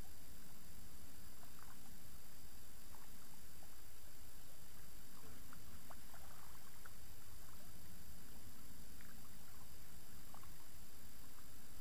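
Steady low wind rumble on the microphone by open water, with a few faint, short, higher sounds scattered through.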